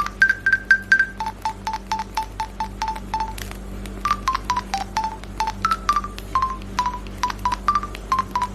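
Push-button keypad beeps pressed in quick succession, about four a second, each beep with a click. They step between a few pitches like a tune: four on one higher note, then a run on a lower note, then moving up and down. A steady low hum runs underneath.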